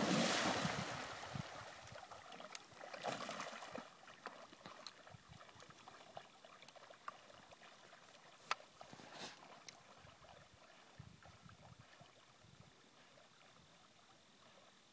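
Splashing water as a retriever enters a pond and swims out on a water retrieve, loudest at the start, with a second smaller splash about three seconds in, then fading into faint water sounds.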